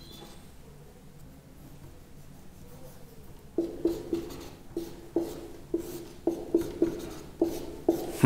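Whiteboard marker being written with on a whiteboard. It is faint at first, then from about three and a half seconds in comes a quick series of short pitched squeaks, one for each pen stroke.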